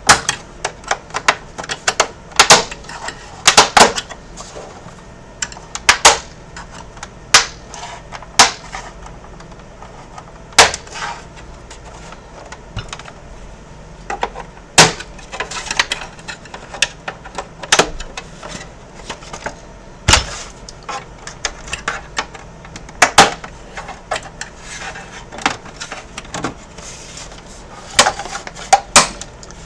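Irregular sharp clicks and knocks of plastic as the casing of a half-disassembled Xbox One S console is handled and pried apart.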